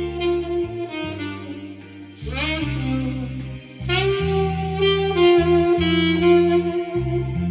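Saxophone playing a slow, sustained melody over musical accompaniment, sliding up into notes twice, about two and four seconds in.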